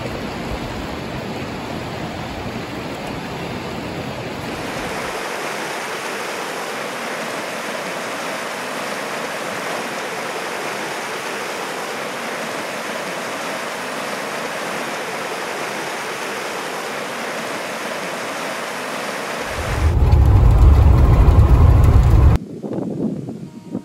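Gunnison River running: a steady rush of flowing water. Near the end it gives way to a loud low rumble for about three seconds.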